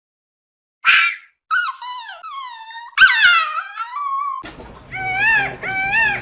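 A dog gives a short sharp sound, then whines and howls in high, sliding cries. About four seconds in, a goat starts bleating in a quick run of rising-and-falling calls.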